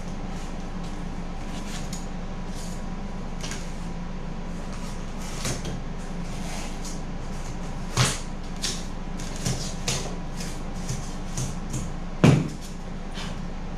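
Tools and foam pieces being picked up, pressed and set down on a wooden workbench: a scatter of short knocks and clicks, with two louder knocks about 8 and 12 seconds in, over a steady low hum.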